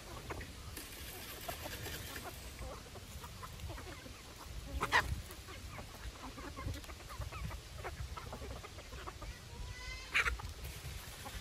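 A flock of chickens clucking softly while pecking at feed, with two louder, sharper calls, one about five seconds in and one near the end.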